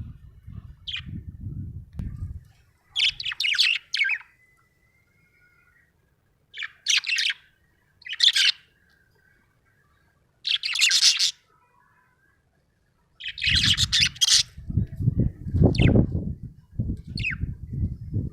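Budgerigar chirping in about five short bursts of high warbling chatter, with a faint thin whistle between some of them. A low rustling noise, about as loud as the chirps, runs through the first couple of seconds and again from about two-thirds of the way in.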